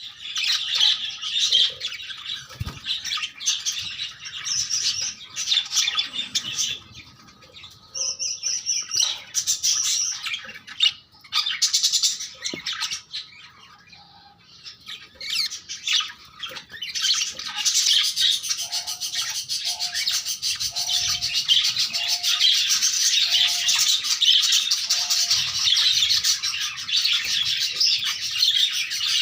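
Budgerigars chirping and chattering, in spells with short lulls at first, then a steady dense chatter through the second half.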